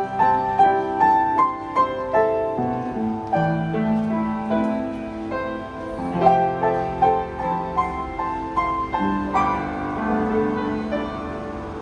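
Kawai BS-1A upright piano being played: a flowing melody over chords and bass notes, each note struck and then decaying. The piano is freshly reconditioned, with filed hammers and a new regulation and voicing.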